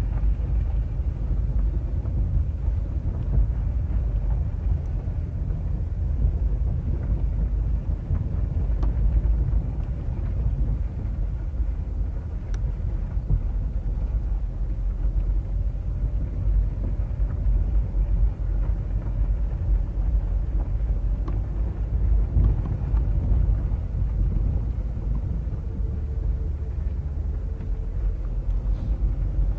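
Car driving on a dirt road, heard from inside the cabin: a steady low rumble of tyres and engine, with a few faint clicks from loose gravel.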